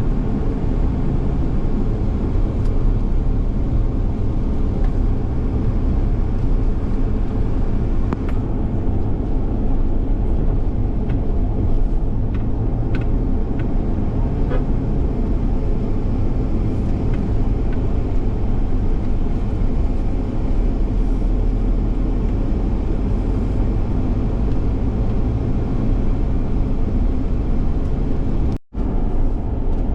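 Car engine and tyre noise heard from inside a moving car, a steady low rumble with a few faint rattles. It cuts out for an instant near the end.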